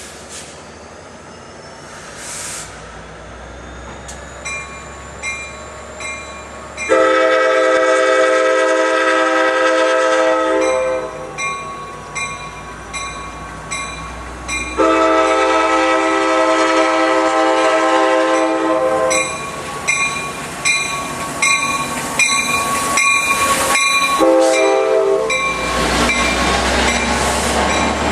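EMD F59PHI locomotive of a Sounder commuter train sounding its chime horn in two long blasts and then a short one, the opening of the long-long-short-long grade-crossing signal. Its bell rings steadily, about one and a half strokes a second, between the blasts as the train comes past.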